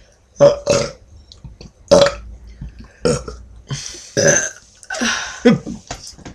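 A person burping over and over: a string of about eight or nine short burps in quick, uneven succession.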